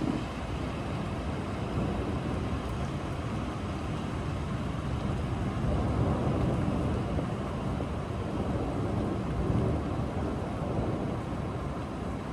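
Steady rain with low rumbling thunder, the rumble swelling about halfway through and again a few seconds later.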